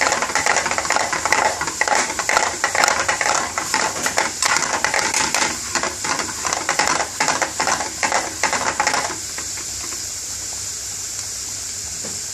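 Chopped garlic frying in hot vegetable oil in an aluminium frying pan, crackling and sizzling while it is stirred, the tarka being made for the lentils. After about nine seconds the crackle dies away to a quieter, steady hiss.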